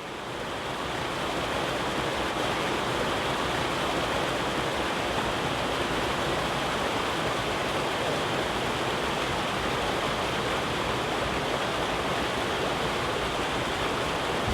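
Mountain river rushing over rocks, a steady roar of water that fades in over the first second or two.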